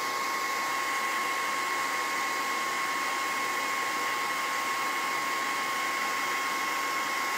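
Handheld hair dryer running steadily: a rush of blowing air with a steady high whine from its motor.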